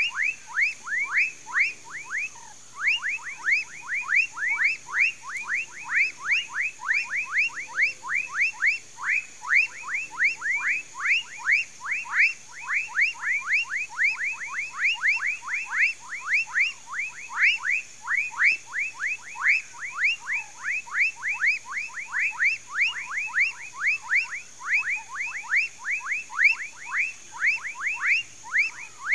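A chorus of frogs in a palm swamp calling non-stop: rapid short whistled notes, each falling in pitch, about three a second, overlapping from several callers.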